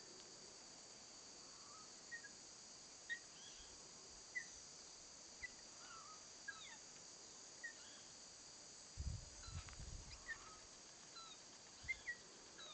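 Faint natural ambience: a steady high-pitched insect drone with short, thin chirps scattered about once a second, and a brief low rumble a little past the middle.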